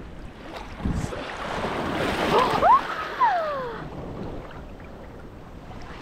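Sea waves washing up the sand, swelling about a second in and ebbing away after about four seconds, with wind on the microphone. Over the peak of the wash comes a brief high sliding cry, first rising and then falling.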